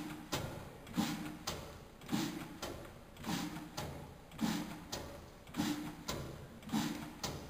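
A 1933 Ruston & Hornsby 6X HRE single-cylinder diesel oil engine running at an even pace. It gives one heavy beat a little over once a second, each a sharp knock with a brief low tone, and a lighter click follows shortly after each beat.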